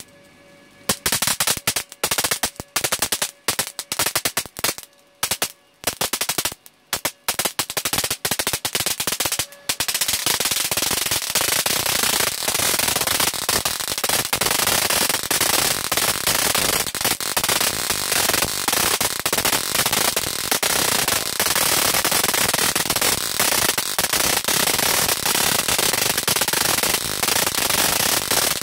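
High-voltage electric arcs snapping across a glass sheet. For the first several seconds they come as separate sharp cracks with short gaps. From about ten seconds in they merge into a continuous, dense crackle of sparking.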